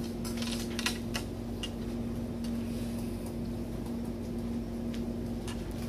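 Room tone in a classroom: a steady electrical hum, with a few small clicks in the first couple of seconds.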